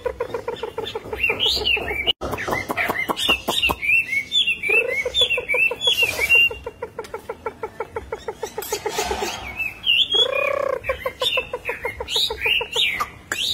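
Caged Chinese hwamei singing: quick, varied whistled phrases that bend up and down, mixed with runs of rapid low rattling notes. The rattles come at the start, about five seconds in and again about ten seconds in.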